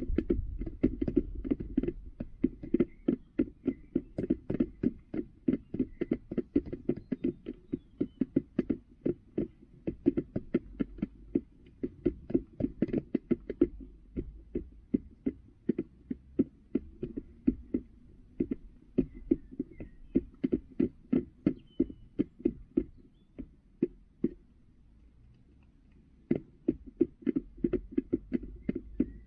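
A hen pecking at a feeder: a steady run of sharp taps, about three a second, with a short pause near the end.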